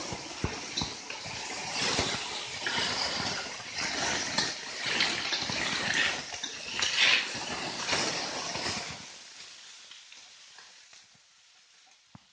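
Sliced bamboo shoots sizzling in oil in a stainless steel wok while a metal spatula stirs and scrapes them, with frequent sharp clicks of the spatula on the wok. The sizzling fades away about nine seconds in.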